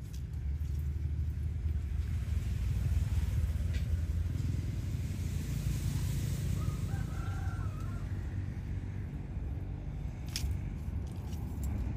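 Low, steady engine rumble, louder in the first half and easing off later, with a brief warbling call about seven seconds in and a few sharp clicks near the end.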